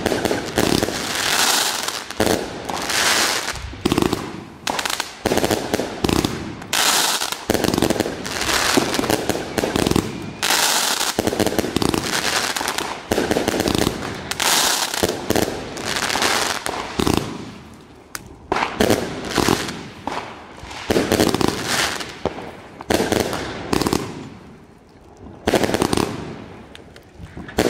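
Vuurwerkmania Tournament Box fireworks cake firing shot after shot: sharp launch bangs and bursting stars in quick succession, thinning out with short lulls in the last third.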